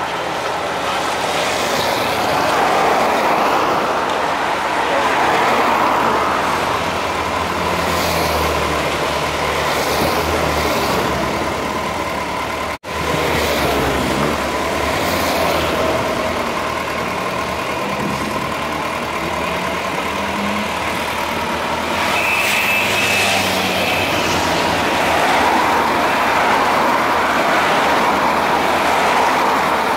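Race convoy vehicles, motorcycles and cars, passing one after another on a wet road: engine noise and tyre hiss swell and fade several times over a steady low engine hum.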